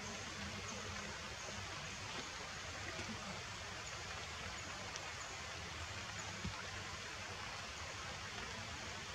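Steady, even hiss of outdoor forest ambience, with a few faint short high chirps and a light click or two.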